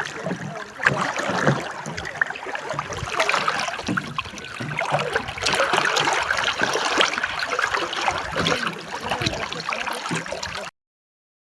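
Splashing and rushing river water as people wade and swim across a fast-flowing river, with irregular splashes throughout. It cuts off suddenly near the end.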